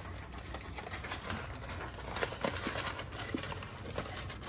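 Scattered light clicks and rustling: cooked dog food being scooped out of an aluminium foil packet into a stainless steel bowl, with foil and utensil knocking against the metal.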